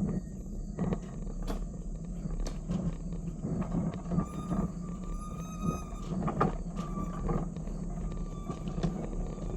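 Small railroad train creeping along: a steady low engine rumble with repeated clanks and knocks, and a high squeal for about two seconds near the middle.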